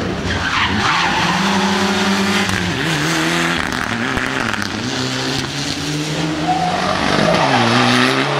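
Mitsubishi Lancer Evolution rally car's turbocharged four-cylinder engine working hard through corners: the revs climb and fall again and again as the driver shifts, brakes and accelerates.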